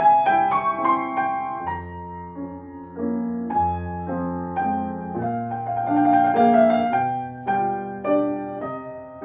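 Solo piano playing classical music: a melody in the upper register over held bass notes and repeated chords.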